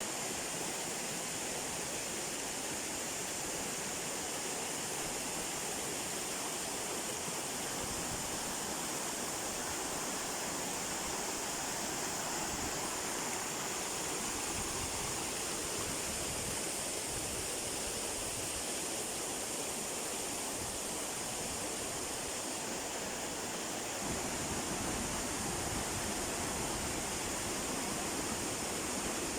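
Waterfall rushing: a steady wash of falling water that gets a little louder about 24 seconds in.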